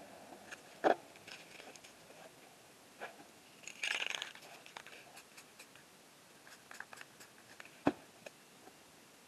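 Hand-work noises at a painting surface: scattered light taps and clicks, a short crinkle of a crumpled sheet about four seconds in, and two sharper knocks, one about a second in and one near the end.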